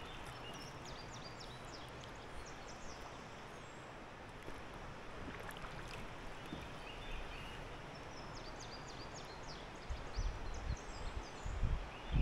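Steady outdoor hiss of a calm river with songbirds singing runs of short, quick, high chirps, once early and again later. Low rumbling comes in near the end.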